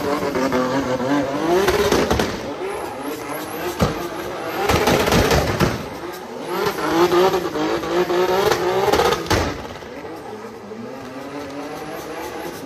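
Turbocharged 2JZ straight-six of a Nissan Silvia S15 drift car revving up and down in repeated surges while it drifts, with tyres squealing and spinning. About nine and a half seconds in, the revs drop and the engine runs quieter.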